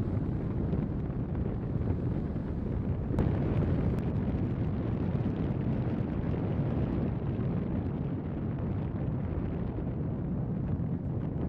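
Wind buffeting a compact camera's microphone on a moving boat: a steady low rumble, with two faint ticks about three and four seconds in.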